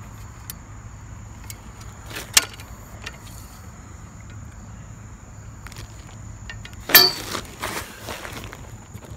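Metal golf-net frame poles being handled in their fabric carry bag: a sharp click about two seconds in, then a louder metallic clatter about seven seconds in followed by a few smaller knocks. A steady low rumble and a thin high tone run underneath.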